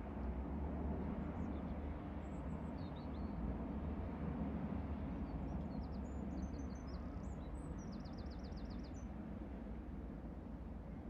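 Small birds chirping, with a quick trill of about eight notes near the end, over a steady low outdoor rumble.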